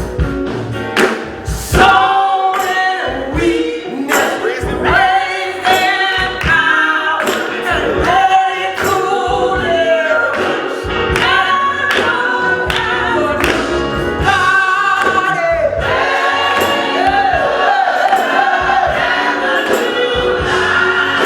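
Gospel choir singing over a band with a steady beat.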